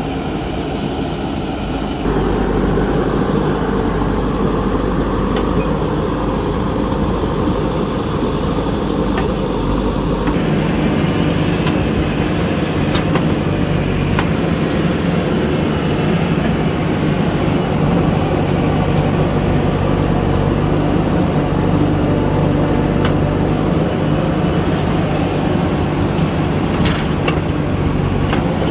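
Diesel engines of a JCB backhoe loader and tractors running steadily. The engine sound shifts abruptly twice, about two seconds in and again near ten seconds, with a few sharp knocks over it.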